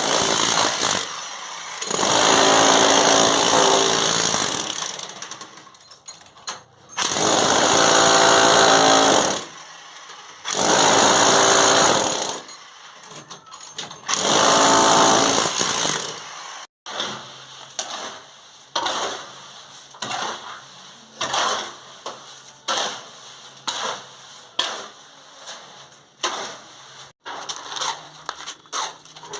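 An electric power tool, of the hammering kind used to break masonry, is run in five loud bursts of one to three seconds each. After that come irregular sharp knocks and taps, about one or two a second.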